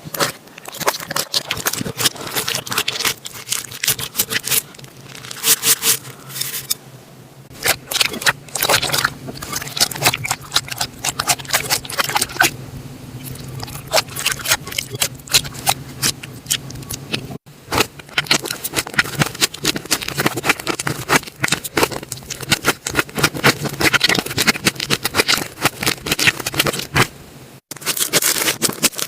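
Slime being squished and worked by hand, giving dense crackling and clicking pops with a wet scraping sound.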